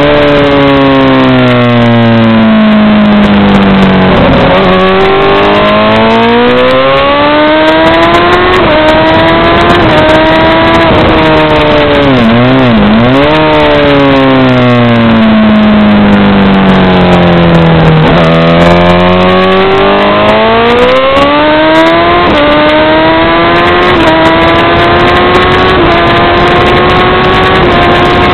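Honda CBR1000RR SC57's inline-four engine at speed, heard from the bike itself: the revs drop off under braking into corners and pick up again on the exits, three times. In the last third it climbs in steps, shift by shift, as the bike accelerates up through the gears.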